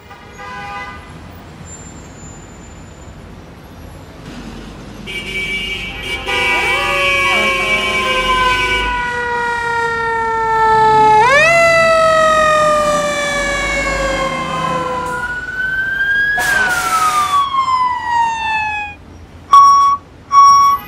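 Fire truck siren winding up sharply and sliding slowly back down, three times over, with a brief hiss in the middle. Near the end come a few loud short beeps.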